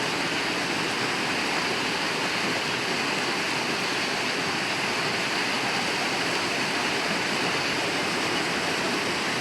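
Floodwater of a swollen river rushing past in a steady, unbroken wash of noise.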